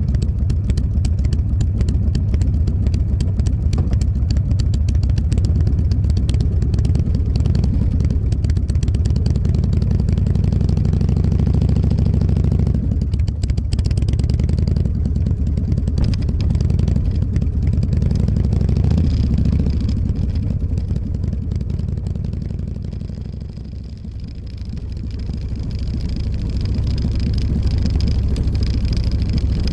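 Motorcycle engine running while riding, a steady drone with a change in pitch about halfway through. It eases off a little past two-thirds of the way in, then builds again.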